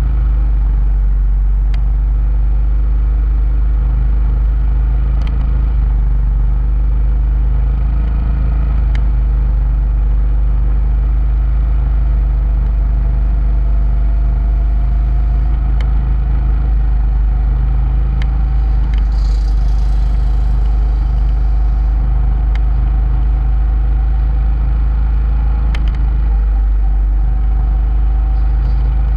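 Motorcycle running at steady road speed, its engine steady under a heavy constant rumble of wind on the bike-mounted microphone, with the engine note rising slightly about halfway through.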